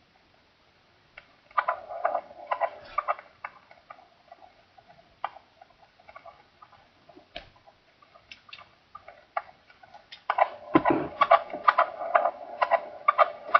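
Irregular clicking and crackling, with a burst of dense crackle about two seconds in and a longer, denser stretch from about ten seconds in.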